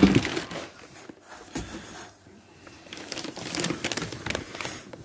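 Clear plastic packaging bags crinkling and rustling as plastic-wrapped stainless exhaust pipes are handled, with a dull knock right at the start.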